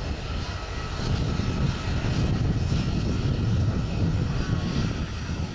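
A Boeing 737-800's CFM56 turbofan engines as a deep, steady rumble with a faint whine above it.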